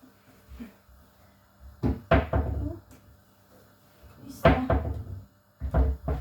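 Three bursts of knocking and clatter from kitchen work: about two seconds in, about four and a half seconds in, and near the end.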